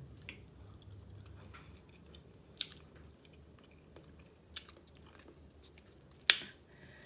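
Chewing and eating, with a few sharp snaps of snow crab shell being broken apart by hand, the loudest about six seconds in.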